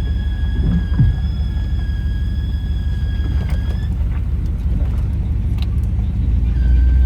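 1989 Dodge Ramcharger engine idling with a steady high-pitched squeal over its rumble. The squeal rises slightly and cuts off about four seconds in, then returns a little lower near the end as the engine gets louder. The squeal's cause is unknown; it depends on throttle position.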